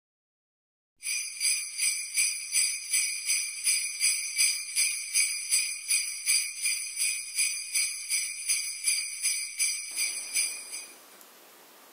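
Jingle bells (sleigh bells) shaken in a steady rhythm, about three shakes a second, starting about a second in and stopping near the end.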